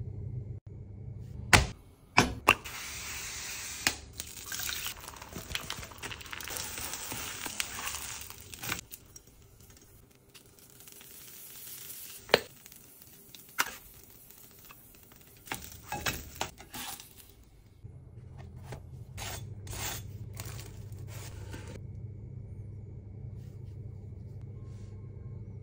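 Kitchen food-preparation sounds: sharp clinks and knocks of utensils against dishes or pans, scattered through the clip. A stretch of hissing or rustling runs from just after the start until about a third of the way in, and a low steady hum is heard at the beginning and again near the end.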